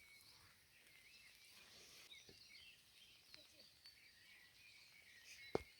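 Faint forest birdsong: several birds chirping and twittering in short, quick phrases. Near the end comes a single sharp knock.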